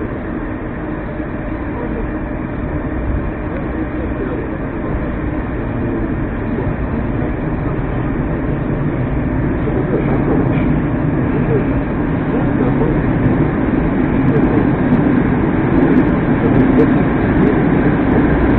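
Moscow Metro "Moskva 2019" (81-775/776/777) train heard from inside the car as it gathers speed into the tunnel: a steady rumble of wheels and running gear that grows gradually louder.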